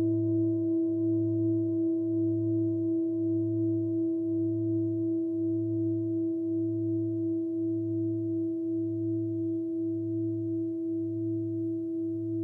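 Himalayan singing bowl ringing on with steady overlapping tones that slowly fade. Under them a low hum wavers a little more than once a second.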